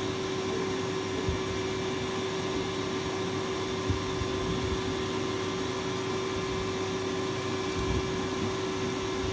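Electric Tullu water pump running with a steady motor hum and whine as it lifts supply water.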